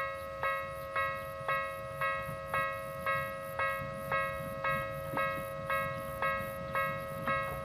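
Japanese railway level-crossing alarm ringing its electronic two-note ding about twice a second, steady and even: the warning that a train is coming. A low rumble builds under it from about halfway as the train draws near.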